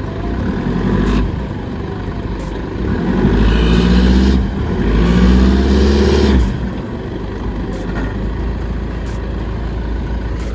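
A four-wheel-drive vehicle's engine running, revved hard twice in long pushes about three and five seconds in, then settling back to a steady run: a vehicle trying to power out of where it is bogged.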